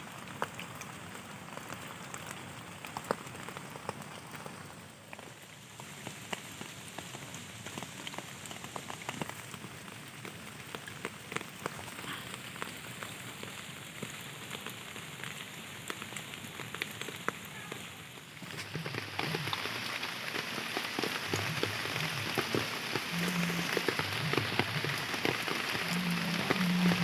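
Rain falling, with many individual drops pattering on a surface. About two-thirds of the way in it becomes heavier and louder.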